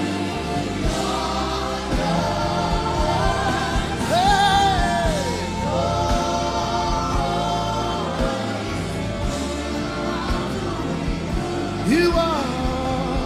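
Gospel worship music with singing over sustained accompaniment. A voice swoops up and down about four seconds in, and again near the end.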